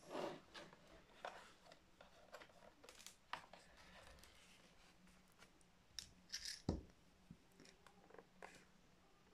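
Faint, scattered clicks and scrapes from handling and prying at a laptop's plastic casing, with a dull knock about two-thirds of the way through.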